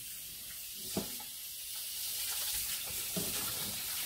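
Pull-down kitchen faucet sprayer running water into a stainless steel pot, a steady hiss of spray, with a light knock about a second in.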